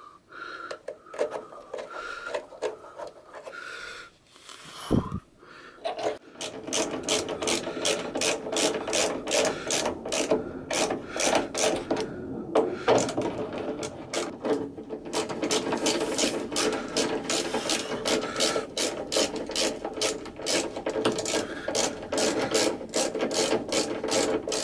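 Socket ratchet wrench clicking in quick, steady runs as door hinge bolts are turned in and tightened. The clicking starts about six seconds in, after a quieter stretch with a single knock.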